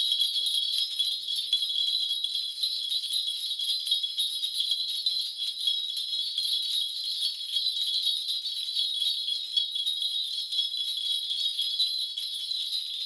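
A shaman's bundle of ritual brass bells (bangul) shaken without pause, a dense steady jingling, as used to call the spirits during a divination reading.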